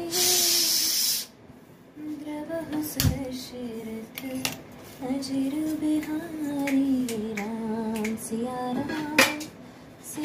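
A woman humming a wavering tune while steel kitchen utensils and bowls clink and knock as she handles them, with one sharp clack near the end. A loud hiss fills about the first second.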